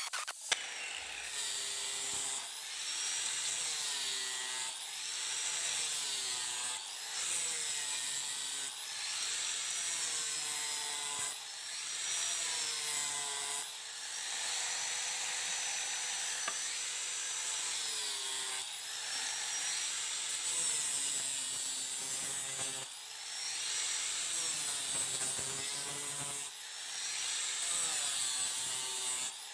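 Electric grinder working the steel of a machete blade in repeated passes. The motor's pitch dips as it bites into the metal and rises again as it eases off, roughly every two seconds, with one longer steady run in the middle.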